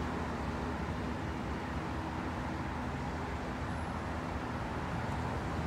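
Steady rumble with a low hum from the running machinery of an automatic car wash, heard from outside the building, mixed with road traffic noise.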